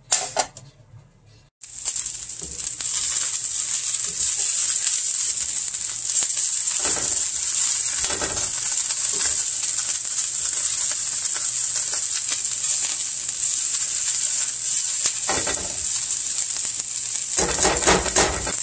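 Sliced green onions sizzling in a nonstick frying pan over medium-high heat. The sizzle starts suddenly about a second and a half in and holds steady, with a spatula stirring and scraping the pan a few times.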